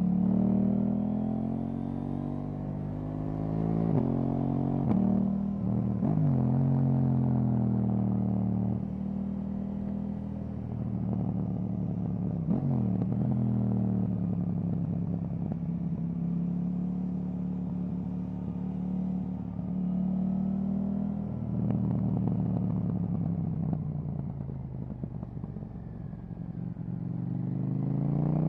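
KTM 790 Duke's parallel-twin engine through an Akrapovic exhaust, under way. Its pitch climbs and drops sharply several times as it shifts through the gears, holds steady at cruising speed for several seconds in the middle, then climbs again near the end as it accelerates.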